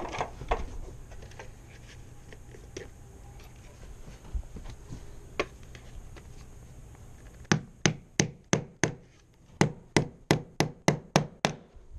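Hammer tapping nails through the flange of a PVC sill-pan end cap to tack it in place. A few scattered taps come first, then two quick runs of strikes in the last few seconds, about five and then about seven.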